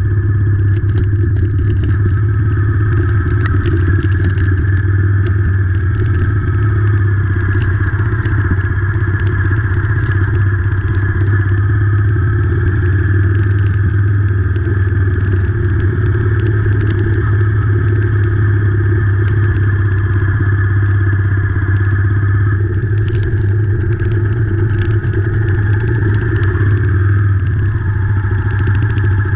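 Royal Enfield Meteor 350's single-cylinder engine running steadily on the move, with scattered ticks of rain hitting the camera.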